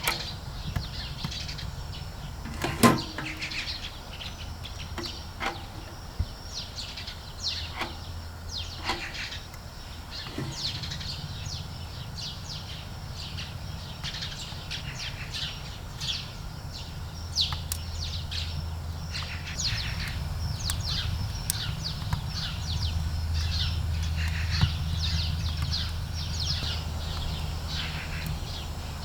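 Small birds chirping over and over in short, quick calls, over a steady low rumble, with one sharp click about three seconds in.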